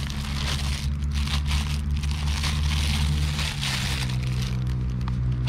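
Plastic packaging crinkling and crackling as a parcel is unwrapped by hand, dying away near the end, over a steady low hum.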